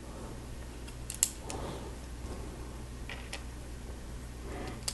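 Small hard-plastic clicks of Lego bricks being handled and pressed together: a few scattered taps, the sharpest about a second in, over a steady low hum.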